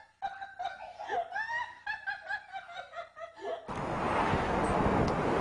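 High-pitched laughter in quick short bursts. About three-quarters of the way through it cuts off abruptly and a steady, louder rushing noise takes over.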